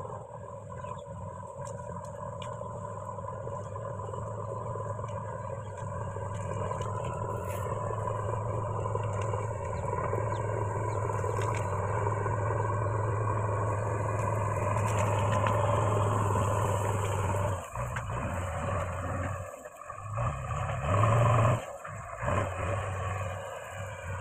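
JCB 3DX backhoe loader's diesel engine working under load as its front bucket pushes through pomegranate bushes. It is a steady drone that grows louder over the first fifteen seconds or so, then drops away and surges back several times, with a brief loud surge about 21 seconds in.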